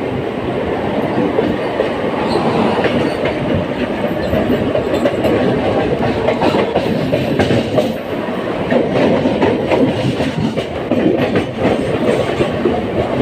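Mumbai non-AC suburban EMU local train running, a steady rumble of wheels on the track with clickety-clack over the rail joints.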